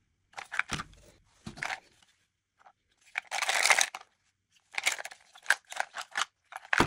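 Pencils rattling and clacking against each other and against a pencil box as it is handled and its front panel is lifted away. The sound comes as short scrapes and clacks, with one longer scrape about three seconds in and a quick run of clicks near the end.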